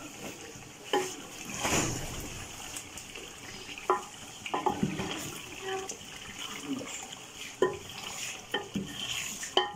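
Wooden spoon stirring chicken pieces frying in oil in a large aluminium pot, scraping through the meat and knocking sharply against the pot several times, over a steady sizzle. The chicken is being browned after its water has cooked off.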